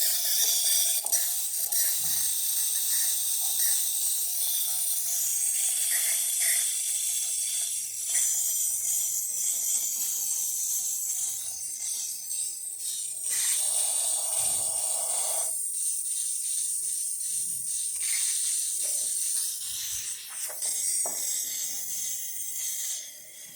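Rancilio Silvia espresso machine's steam wand hissing steadily while the steamer is tested after a full service. The hiss shifts in tone partway through and eases off near the end.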